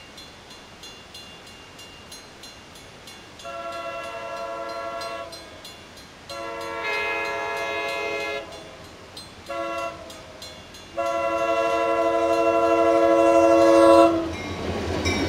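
Diesel freight locomotive's multi-chime air horn blowing the grade-crossing signal: long, long, short, long, each blast louder as the train approaches. Just after the last blast the locomotive reaches the crossing and the rumble of the engine and wheels rises.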